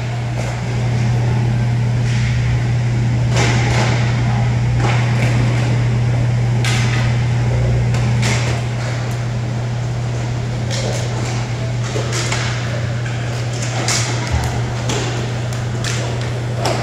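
Inline hockey play on a plastic sport-court floor: hockey sticks and puck clacking in sharp, irregular knocks, over a steady low hum.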